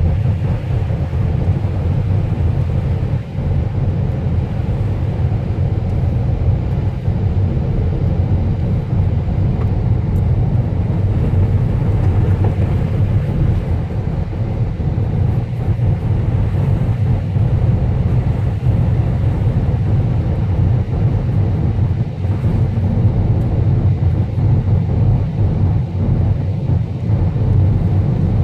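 Car driving at a steady speed: a steady low rumble of engine and tyres on the road, heard from inside the cabin.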